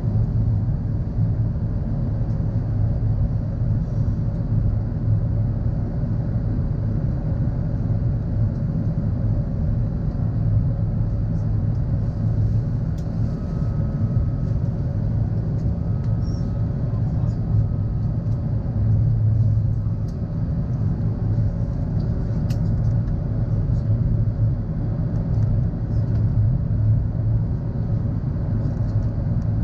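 Airbus A380 cabin noise at a window seat over the wing during the climb after takeoff: a steady low rumble from the Rolls-Royce Trent 900 engines and the airflow, with a few faint clicks from the cabin.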